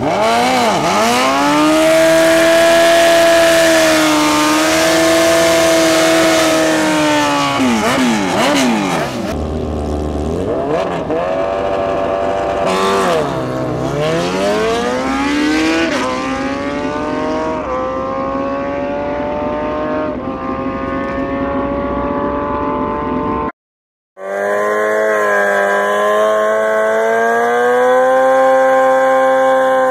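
Sport motorcycle engines revving hard at a drag strip, pitch rising and falling again and again as they launch and accelerate. After a brief cut near the end, a sport bike engine is held at high, slowly climbing revs for a burnout.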